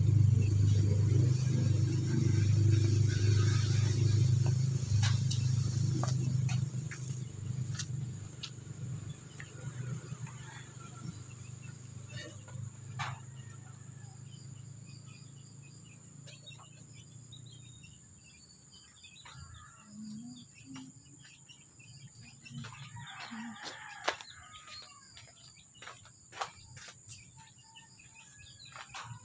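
Running water splashing onto a rough stone and the wet concrete beneath it. It is loud at first and fades gradually over the first 18 seconds or so. After that it is quieter, with birds chirping and a few short calls.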